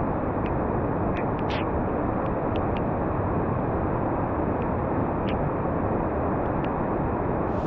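Steady rushing roar of a fast, rapid-filled river, with a few faint clicks scattered through.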